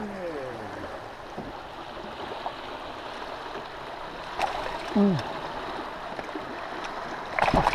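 Steady rush of fast river current flowing past the boat. About five seconds in, a short falling vocal sound stands out, and a brief burst of noise comes near the end.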